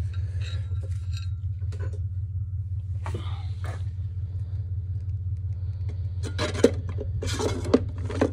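Heavy steel parts of a ZF 8HP automatic transmission being handled during its rebuild: scattered clinks and scrapes, with two sharper metal knocks near the end, over a steady low hum.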